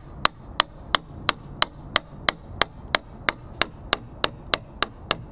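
Hammer tapping on a catamaran's rudder kick-up bracket, about three light, evenly spaced strikes a second, driving the sacrificial plate back into the bracket.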